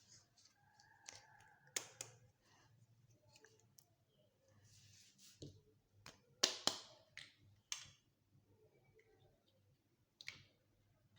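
Small plastic toy kitchen pieces clicking and tapping against each other as they are handled and set down, a few sharp clicks with soft rustling between them, the loudest cluster about six and a half seconds in.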